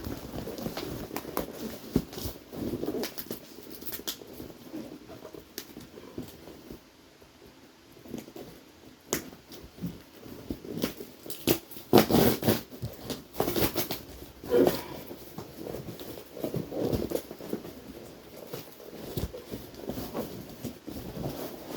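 A mailed package being handled and opened: irregular rustling with scattered taps and knocks of cardboard and packaging, busiest a little past the middle.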